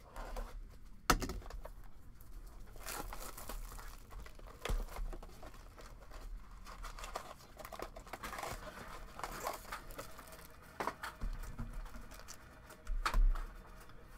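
A cardboard box of trading cards being torn open and its foil card packs handled: crinkling, tearing and small clicks, with a sharp snap about a second in and a knock near the end.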